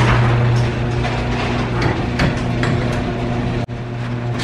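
Electric garage door opener running: a steady motor hum as the sectional door rolls up its tracks, broken briefly about three and a half seconds in.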